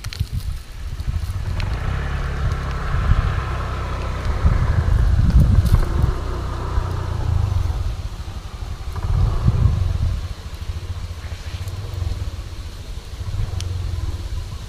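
Wind buffeting the microphone: a low rumble that swells and eases in gusts.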